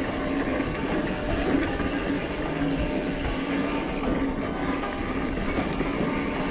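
Mountain bike rolling along a dirt singletrack, a steady rattle and rumble of tyres and bike frame.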